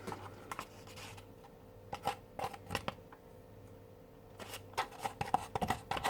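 Scattered soft clicks and rustles of small objects being handled, bunched around two seconds in and again from about four and a half seconds on, over a faint steady hum.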